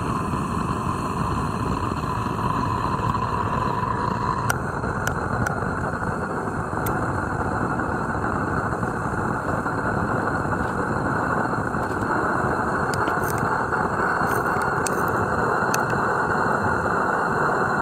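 Butane gas burner of a live-steam garden locomotive (an Accucraft Emma rebuilt as a two-foot-gauge Forney) burning with a steady rushing sound just after being lit at the smokebox. A steady whine rides on it for the first four seconds or so, then the rushing broadens and stays even, with scattered light ticks.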